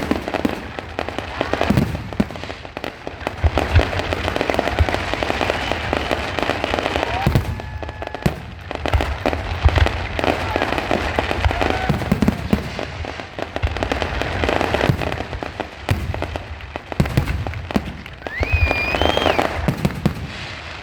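Aerial fireworks going off in quick succession: repeated deep booms and sharp bangs with crackling between them, and a brief high gliding tone near the end.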